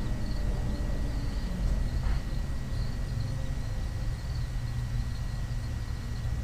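Steady low mechanical hum with a faint steady high tone over it, and a light click about two seconds in.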